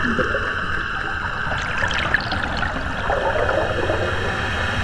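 Live electronic music made from water sounds picked up underwater by a hydrophone and processed on a laptop, playing through a PA loudspeaker. It is a steady watery hiss over a low rumble, with irregular small sounds about two seconds in and again between three and four seconds in.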